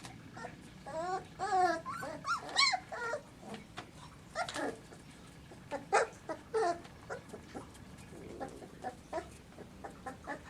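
Young Kleine Münsterländer puppies whimpering and squeaking, with a run of high, wavering squeals about a second in, then shorter scattered squeaks and clicks.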